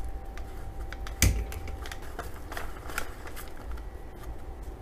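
Clicks and taps of a phone stand's rod and base being handled and screwed together, with one louder knock about a second in and scattered lighter ticks after it.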